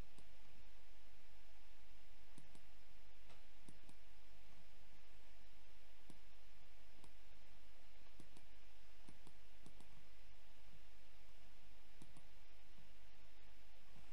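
Computer mouse clicking at irregular intervals, several clicks coming in quick pairs, over a steady low hum and hiss.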